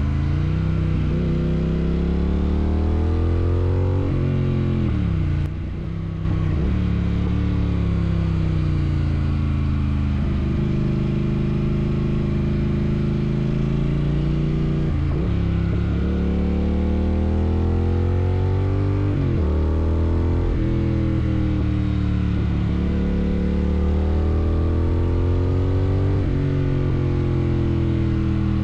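Triumph Thruxton RS 1200 parallel-twin with a Weslake exhaust, dB killer removed, pulling through the gears: the engine note climbs in pitch and drops sharply at each gear change, several times over. A brief dip in loudness about five and a half seconds in.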